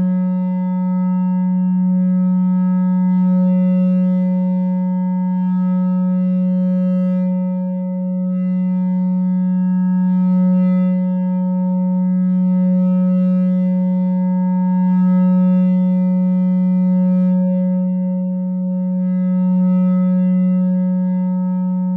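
No-input mixer feedback drone from a two-channel mixer fed back into itself through an effect pedal: a steady low tone with fainter higher tones held above it, slowly swelling and easing.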